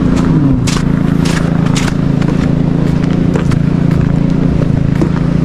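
Footsteps crunching and scraping on an icy, slushy sidewalk, over a steady low mechanical hum.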